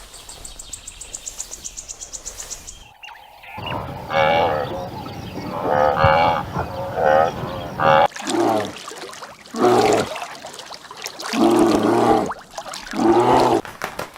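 Livestock calling: a run of short, wavering calls, then four lower, longer moo-like calls, each about a second. Before them, for about the first three seconds, a fast, high-pitched trill cuts off suddenly.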